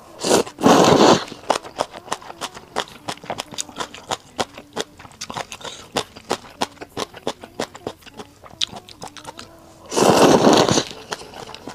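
Rice noodles slurped loudly into the mouth twice, for about a second each, near the start and again near the end. In between come quick, wet chewing clicks.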